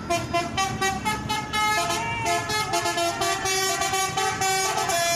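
Basuri telolet bus horn playing a tune: a run of loud horn notes that step from pitch to pitch every fraction of a second.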